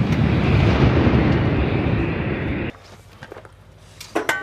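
Rolling boom of an M777 towed 155 mm howitzer's shot, rumbling on for a few seconds and cutting off abruptly about two and a half seconds in. Near the end, a sharp metallic clang that rings briefly.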